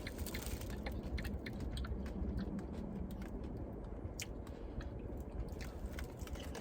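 Close-miked chewing of a quesadilla beef taco: wet, irregular mouth clicks and smacks as it is bitten and chewed.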